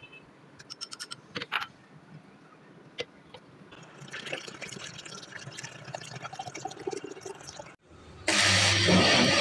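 Water poured into a plastic blender jug, a steady splashing hiss for a few seconds after some light clicks. Near the end, the Westpoint electric blender's motor starts and runs loudly with a low hum as it blends the batter.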